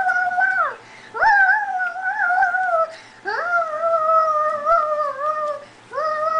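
A young child's high voice making long, wavering wordless calls, four in a row with short breaks, each sliding up at its start.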